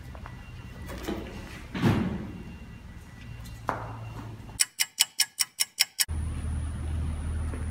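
A fast clock-ticking sound effect, eight sharp ticks in about a second and a half over a sudden drop to silence, near the end. Before it, room noise with a loud sound falling in pitch about two seconds in and a short knock a little later.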